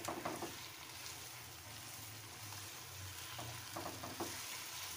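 Raw chicken pieces frying in hot oil and fried onion paste in a nonstick karahi while they are stirred with a spatula: a steady sizzle, with a few short knocks of the spatula against the pan just at the start and again about three and a half to four seconds in.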